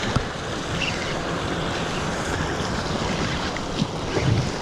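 Steady wash of sea surf breaking against the rocks below, with wind buffeting the microphone.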